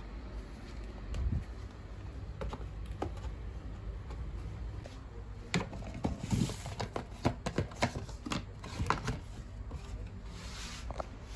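Handling noises: a few scattered clicks, then a dense run of sharp clicks and knocks in the middle with brief rustles, as a cardboard box of gel polish bottles is slid out from under a shelf and opened.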